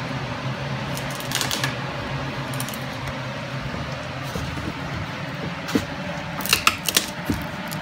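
Wood chisel levering out and snapping off the thin slivers of wood left between saw kerfs in a dado, giving a few sharp cracks and clicks, most of them in the last couple of seconds. A steady low hum runs underneath.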